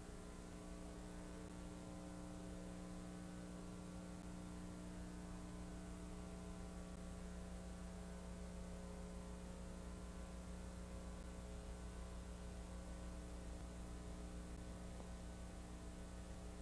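Steady electrical mains hum with hiss, low in level and unchanging.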